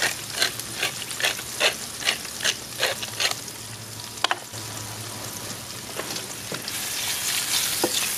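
Sliced mushrooms sizzling in butter and olive oil in a cast iron skillet, while a pepper grinder is twisted over them in about eight quick, even grinding strokes that stop a little over three seconds in. A sharp clink a little after four seconds; the sizzle carries on alone and grows slightly louder near the end.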